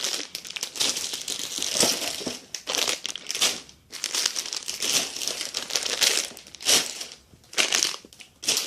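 Plastic crinkling and rustling in uneven, bunched bursts with short pauses, as squishy toys in plastic packaging are handled and packed away.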